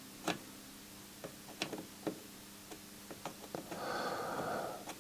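Light clicks and taps of hand soldering work on a stereo receiver's circuit board, irregular and quiet. About four seconds in there is a brief hiss lasting around a second.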